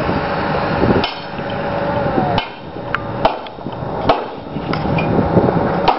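Westmorland green roofing slate being worked by hand with a hammer: about six sharp, irregularly spaced strikes on the slate. A steady background noise drops away about a second in.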